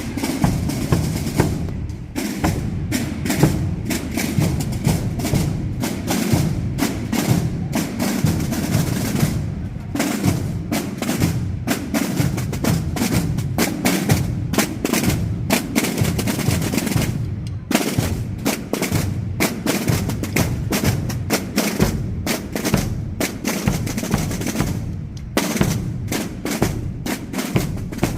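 Spanish Holy Week drum band of snare drums (tambores) and large bass drums (bombos) playing together, with dense rolls over heavy, booming bass-drum beats.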